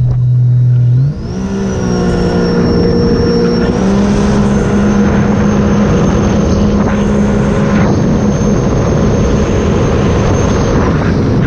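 Supercharged engine of a Sea-Doo RXP-X 300 jet ski, steady at first. About a second in, the engine accelerates, its pitch climbing along with a high whine that then holds steady as it cruises, over wind and water rush. Shortly before the end the whine cuts off.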